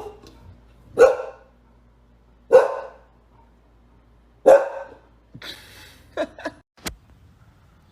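A dog barking in single loud woofs, three of them about one and a half to two seconds apart. A few short, softer sounds follow near the end.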